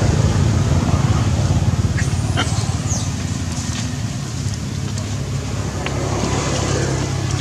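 Steady low hum of an engine running off-camera, easing slightly after about three seconds, with a few short high chirps about two and three seconds in.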